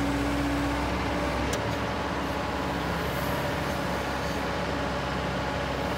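Cat M315 wheeled excavator's diesel engine running steadily with the hydraulics working the boom and bucket; a higher tone in the drone drops away about half a second in.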